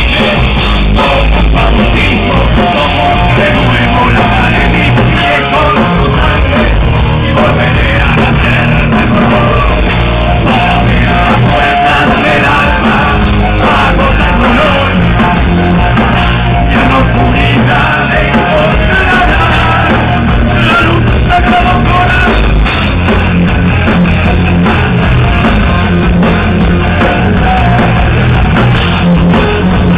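Rock band playing live and loud, electric guitar and vocals, with a steady, unbroken level throughout.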